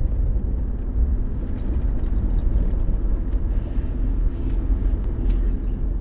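Steady low rumble of a car driving, heard from inside its cabin: engine and tyre noise on the road.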